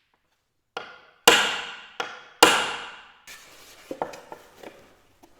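Four heavy knocks on wood in quick succession, each ringing out briefly, followed by a few lighter knocks and clatter.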